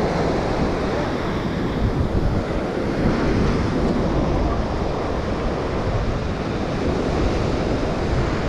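Ocean surf washing onto a sandy beach, mixed with wind buffeting the microphone; a steady, unbroken noise.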